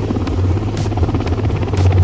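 Helicopter rotor and engine noise, a steady low throb, with music carrying a steady beat of about two ticks a second.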